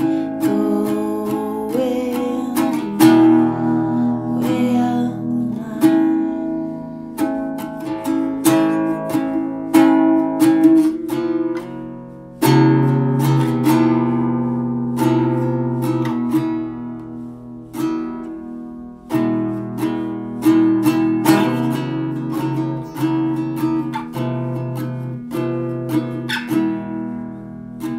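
Acoustic guitar music: chords strummed and notes plucked, each attack ringing on into the next, in a slow unhurried rhythm.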